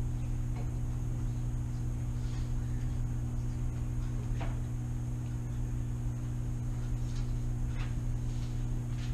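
Steady low room hum with a faint high whine above it, and a few soft rustles of paper being handled.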